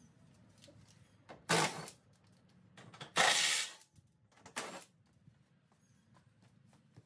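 Plastic front bumper cover of a Lexus GX470 scraping and rubbing three times as it is worked loose from its mounts, the middle scrape the longest and loudest, with faint small clicks between.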